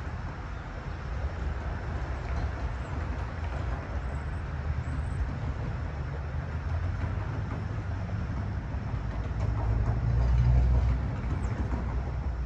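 Low, steady rumble of a train at a station platform, swelling briefly about ten seconds in.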